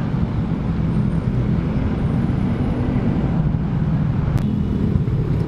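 Honda RS125 Fi motorcycle's single-cylinder engine running steadily while riding, with road and wind noise on the microphone.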